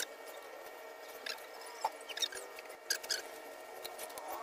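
Weeds being pulled up by hand from dry sandy soil: scattered rustles and a handful of short sharp crackles as stems and roots tear loose, bunched between about one and three seconds in.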